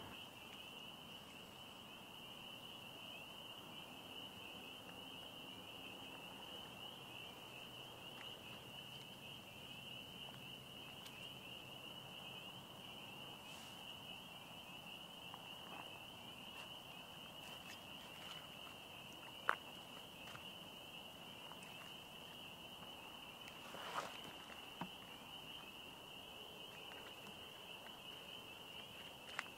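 Steady, high insect chorus trilling without a break, with a few sharp clicks or snaps in the second half.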